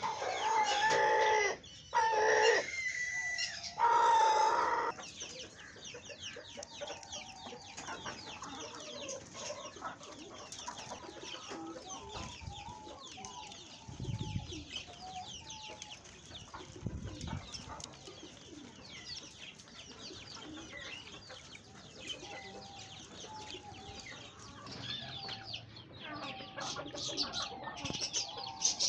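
A rooster crows loudly during the first five seconds. After that, many small cage birds keep up a steady, dense chirping.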